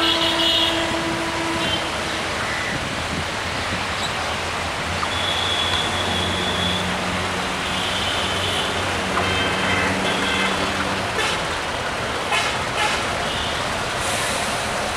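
Diesel locomotive of a passenger train approaching slowly, its engine running with a steady rumble. The horn sounds at the start and stops about two seconds in. A few sharp clicks come near the end.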